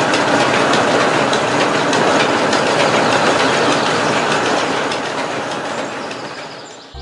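Miniature motor-driven flour mill running and grinding, with a steady fast rattling clatter that fades away over the last two seconds.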